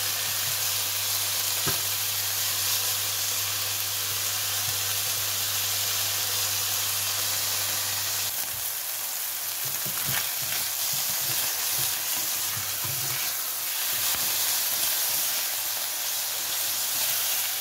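Chicken thigh strips, still partly frozen, sizzling steadily in hot sunflower oil in a frying pan. From about halfway on they are turned, with scattered scrapes and taps of a silicone spatula against the pan.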